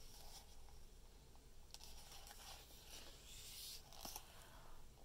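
Faint rustle and scrape of a picture book's paper page being turned, over near silence.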